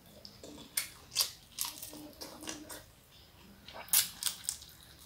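Close-up eating sounds of someone eating sambal shrimp with rice: wet chewing and lip smacks with a run of short, sharp crunchy clicks, the loudest about four seconds in.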